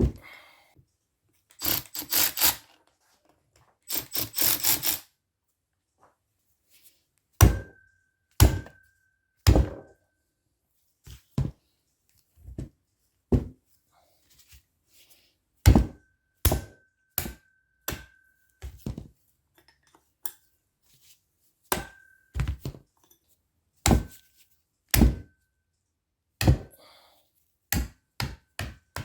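Hand tools and metal parts being worked and knocked about while the valve cover is taken off an Alfa Romeo 33 8V cylinder head: two short bursts of rapid rattling clatter, then a long run of sharp knocks, several with a brief metallic ring.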